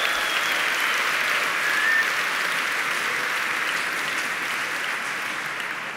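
Audience applauding, a steady wash of clapping that slowly tapers off near the end.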